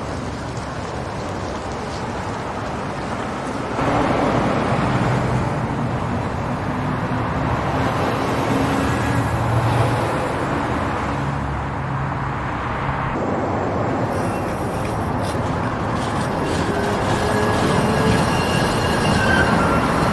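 City street traffic with vehicle engines running. It grows louder about four seconds in, and in the second half a tram's steel wheels squeal on the rails as a high, wavering whine.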